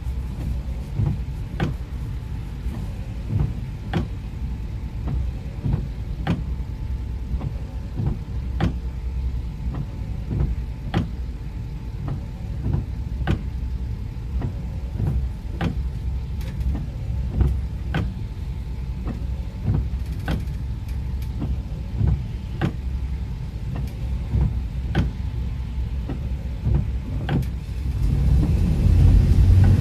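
A car driving in the rain, heard from inside the cabin: a steady low road and engine rumble with an even click a little more than once a second, which fits the windshield wipers sweeping. The rumble grows louder near the end.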